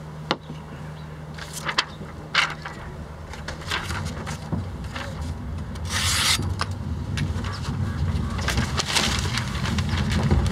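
A Takamura R2 santoku knife slicing through paper in an edge-sharpness test, with paper being handled: short scratchy swishes, the longest and loudest about six seconds in. A low rumble builds in the background from the middle on.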